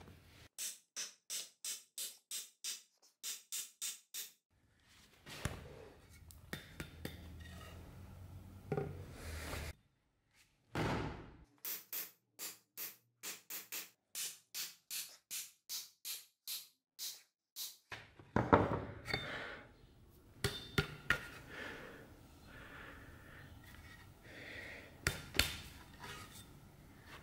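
Runs of short, evenly spaced clicks, about three a second. From about two-thirds of the way in, several sharp knocks ring out as a steel axe head strikes down on a wooden chopping block.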